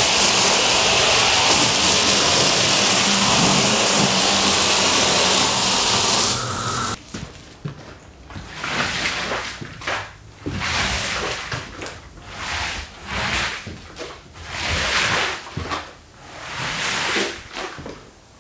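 A pressure-washer spray hisses steadily onto a soaked rug and cuts off about seven seconds in. Then a long-handled squeegee is dragged across the wet rug in repeated swishing strokes, roughly one a second, pushing the water out.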